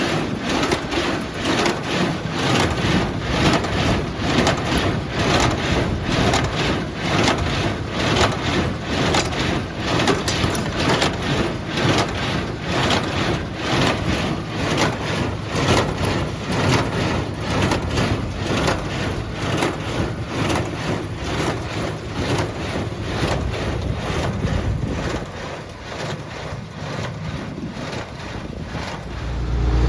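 Tractor pulling a small square baler, its plunger knocking steadily about twice a second as it packs hay into bales, over the tractor's engine and wind on the microphone.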